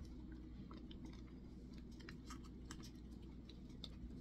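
Faint, irregular small clicks and taps from handling a plastic squeeze yogurt pouch while tasting from it.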